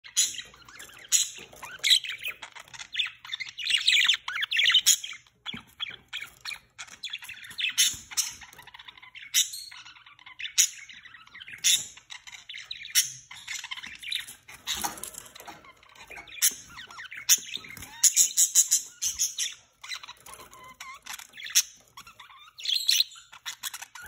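A budgerigar pair chattering, with short sharp chirps about once a second and denser runs of warbling notes: budgie courtship calls in the lead-up to mating.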